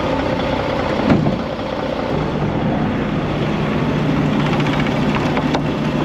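Semi truck engine idling steadily, with a short thump about a second in and a sharp click near the end.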